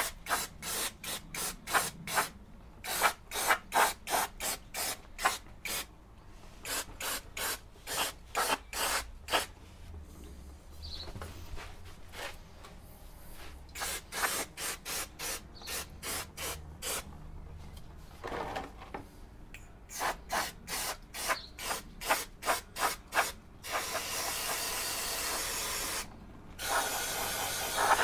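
Aerosol can of brake cleaner hissing as it is sprayed onto a car's bare rear drum brake backplate. It goes in rapid short bursts, about two or three a second, with a couple of brief pauses, then in two long continuous blasts near the end.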